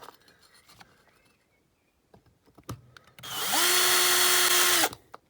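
Small electric drill spinning up about three seconds in, running steadily for about a second and a half as it drills out the rivet holding the window glass in a diecast toy car, then stopping. A few faint clicks come before it.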